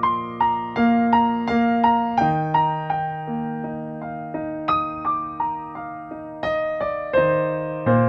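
Background piano music: single notes struck one after another in falling runs over held lower chords.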